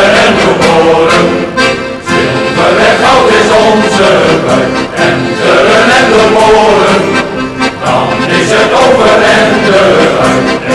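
Background music: a traditional folk tune played on accordion.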